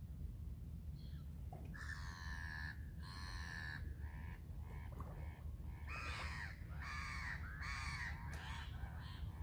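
Crows cawing: two long caws about two seconds in, then a quicker run of four or five near the end, over a low steady rumble.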